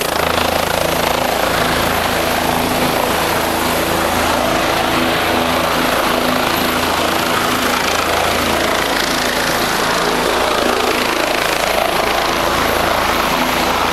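A helicopter running at close range, its engine and rotor making a loud, steady noise with a constant low hum.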